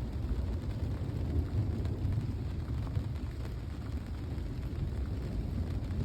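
Thunderstorm ambience: a steady low rumble with no sharp thunderclap.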